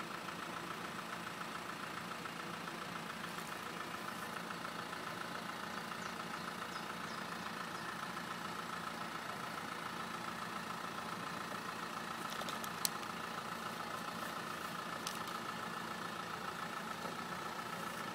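Off-road 4x4's engine idling steadily as the vehicle creeps down a steep mud slope, with a single sharp click about 13 seconds in.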